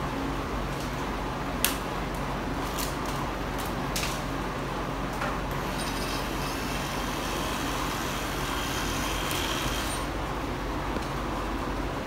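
Oscillating multi-tool with a scraper blade running steadily while it scrapes peeling enamel off bare wood trim. There are a few sharp clicks early on, and a harsher scraping hiss from about halfway in until near the end.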